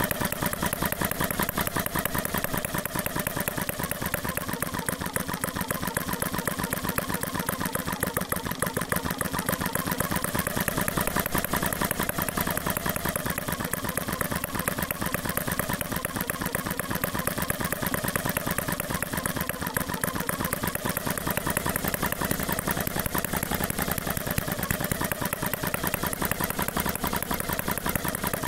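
Retrol HM01 single-cylinder four-stroke model engine running steadily, a rapid, even mechanical clatter.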